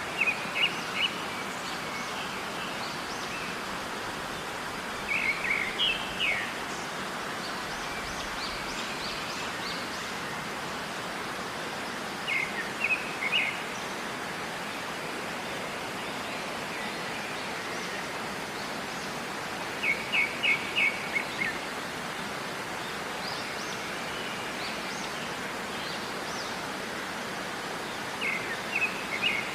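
Steady rushing water of a waterfall with birdsong over it: five short bursts of quick, high chirps, spaced roughly every seven seconds.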